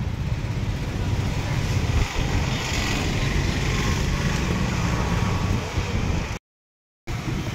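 Steady rumble of road traffic and street noise, with a single knock about two seconds in. The sound cuts out completely for about half a second near the end.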